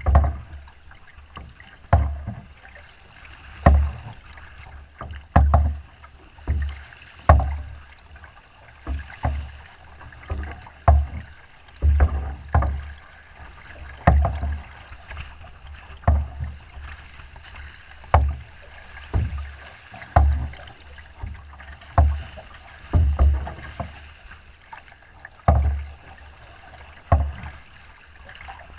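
Choppy lake water slapping against the hull of a small boat as it crosses in strong wind: a sharp low thump with a splash roughly every one to two seconds, over a steady wash of water.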